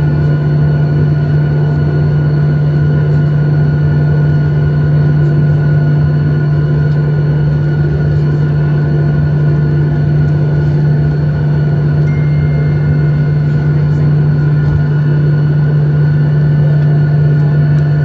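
Cabin noise of a Boeing 737 taxiing after landing, engines at idle: a loud, steady drone with a strong low hum and several faint high whines over it.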